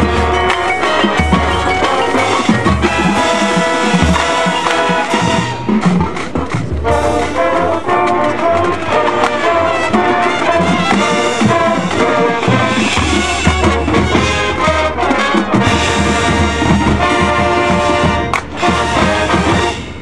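High school marching band playing: brass chords over percussion and low drum hits.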